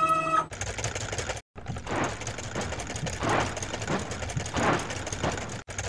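Cartoon car-wash machinery sound effect: a steady rapid mechanical clatter with gushing swells about every second and a half as soap pours from the overhead nozzles. It breaks off briefly about a second and a half in and stops just before the end.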